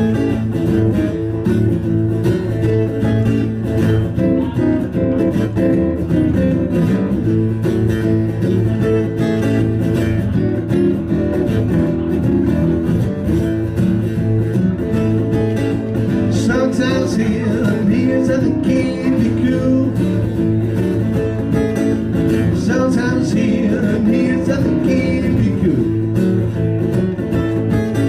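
Taylor acoustic guitar played as a rhythm-and-blues instrumental intro, steady strummed and picked chords. About halfway through, higher wavering notes join in over the chords.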